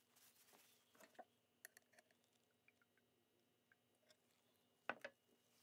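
Faint handling noises as a metal paint thinner can is tipped to soak a rag: small clicks and rustles, with a louder double knock about five seconds in.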